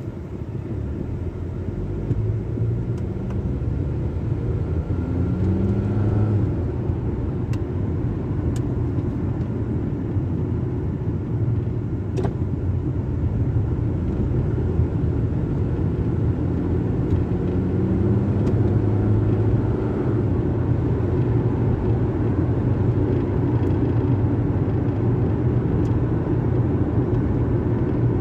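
Car engine and tyre noise heard from inside the cabin. The engine pitch rises as the car accelerates a few seconds in and again about two-thirds of the way through.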